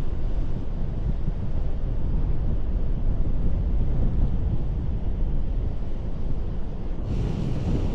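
Ocean surf rumbling against a rocky shore, mixed with wind buffeting the microphone as a steady low rumble. About seven seconds in, a brighter hissing rush of breaking water comes in.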